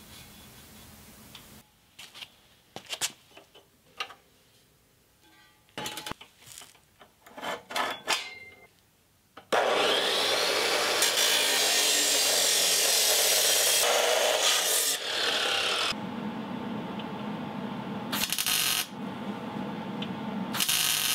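Scattered clinks and knocks of metal parts being handled. Then an abrasive chop saw cuts through 3-inch steel exhaust tubing, loud and steady for about six seconds. After that a MIG welder tack-welds the pipe in short bursts with brief pauses.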